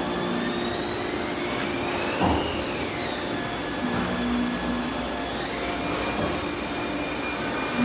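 2013 Haas VF-3 vertical machining center running under coolant: a steady hiss of spray against the enclosure carries a high machine whine that climbs, falls about three seconds in, then rises again and holds. A brief knock sounds just after two seconds.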